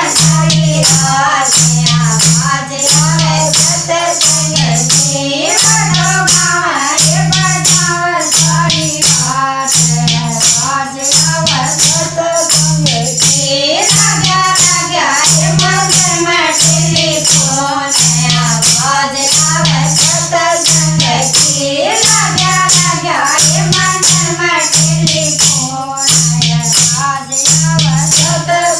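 Haryanvi folk bhajan: a voice sings the melody over fast, even percussion with a rattling, shaker-like sound and a steady low beat.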